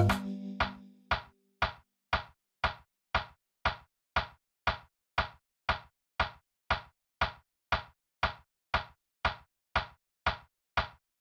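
An evenly spaced dry knock or click, about two a second, keeping time alone in the soundtrack music after a held chord dies away at the start.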